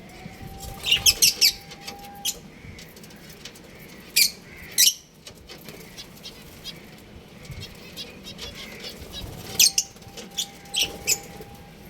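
Small aviary birds (budgies, lovebirds and finches) giving short, sharp, high chirps in scattered clusters, with some wing fluttering.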